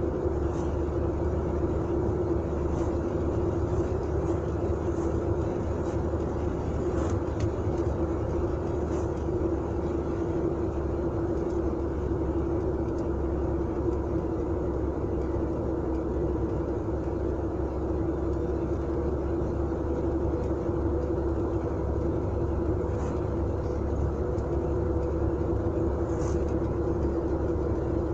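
Volga GAZ-3102 sedan driving at a steady speed: its four-cylinder petrol engine holds an even drone, over a low rumble of tyres on the road.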